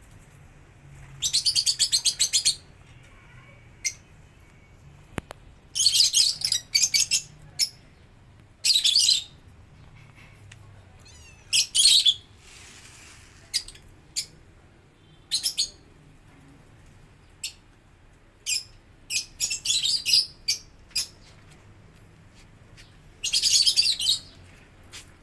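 Small birds chirping in quick, high bursts of a second or so, repeating every few seconds with single short chirps in between.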